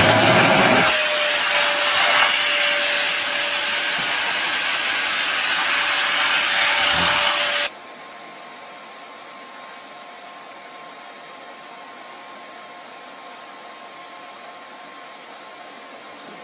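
A small motor running with a loud, steady rushing noise and a constant hum, which cuts off suddenly about halfway through, leaving only a faint hiss with a thin steady tone.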